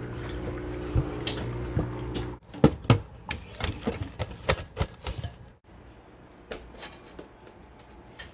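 A steady low hum for about two seconds, then an abrupt change to a quick run of light clicks and knocks of a utensil against a mixing bowl as ingredients are stirred, thinning out to a few faint taps over the last seconds.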